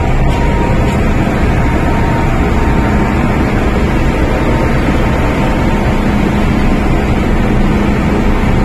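Steady loud hum and rush inside an MTR M-Train standing at a platform with its doors open: the train's ventilation and electrical hum mixed with station ambience. A faint high tone fades out about a second and a half in.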